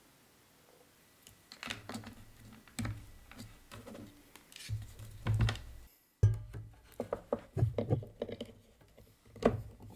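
Clicks, knocks and rattles of a power cable and its plastic power adapter being handled and fitted together on a wooden table. The clicks begin about a second in and come irregularly.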